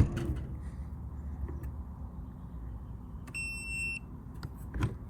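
Electronic smart RV door lock giving a single steady high beep, about 0.7 s long, a little past the middle, after a sharp click at the start.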